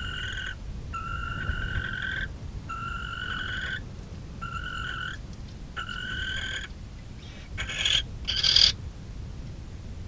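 Barn owls calling in the nest box: a string of about five buzzy, slightly rising calls, roughly one a second, then two short harsh hissing screeches near the end.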